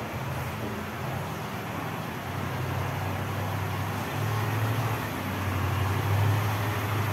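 Steady low drone of a running engine over a broad noisy background, growing a little louder partway through.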